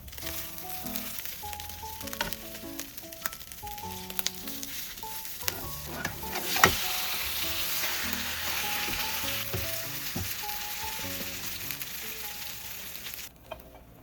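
Food sizzling as it fries in a pan, with scattered clicks of a utensil. About six and a half seconds in there is a sharp knock, after which the sizzling is louder, and near the end it cuts off suddenly.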